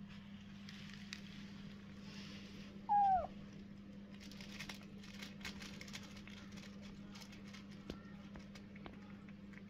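A cat mews once, briefly, falling in pitch, about three seconds in. Around it come faint clicks and crackles of cats eating scraps off a plastic bag, over a steady low hum.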